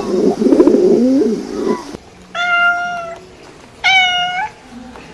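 Pigeon cooing, which cuts off abruptly about two seconds in; then a domestic cat meows twice, two short calls about a second and a half apart.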